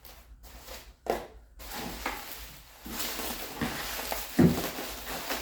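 Rustling handling noise, with a sharp knock about a second in and a louder single knock about four and a half seconds in.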